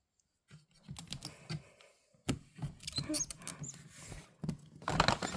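Pearl winter white hamster knocking and scratching at its cage door to be let out: a run of irregular light taps and rattles, with a few short high squeaks about three seconds in.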